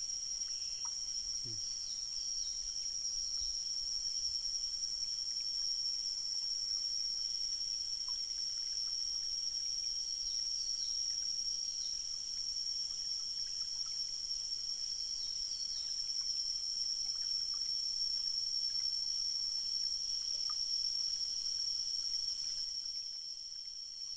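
Steady high-pitched drone of forest insects, several shrill tones held without a break, with short falling chirps every few seconds. Under it is a faint hiss of flowing stream water.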